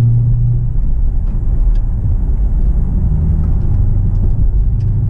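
Dodge Charger R/T Scat Pack's 6.4-litre 392 HEMI V8 heard from inside the cabin while driving: a steady low engine drone over road noise, its note changing about a second in.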